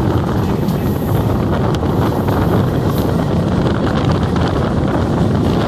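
Chennai EMU electric suburban train running steadily at speed: a continuous rumble of wheels on the rails, mixed with wind noise on the microphone.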